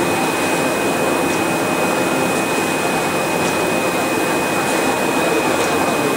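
SAGG320 label die-cutting machine running with a steady mechanical noise and a thin, steady high tone, with faint light ticks about once a second.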